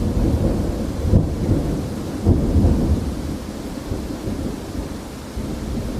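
Floodwater of an overflowing stream rushing past in a steady, heavy low rumble, surging louder about one and two seconds in, as picked up by a phone's microphone.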